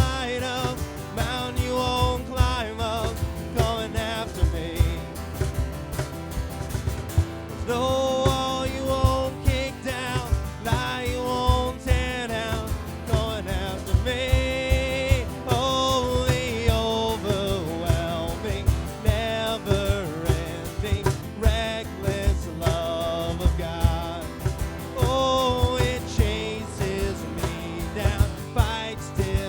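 Live worship music: singing over acoustic guitar, with a cajon keeping a steady beat.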